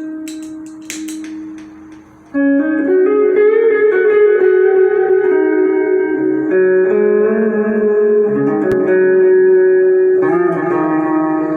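Electric guitar played through a small guitar amp on its clean sound. Sustained chords ring out and change about every three to four seconds, with a few sharp picked attacks near the start.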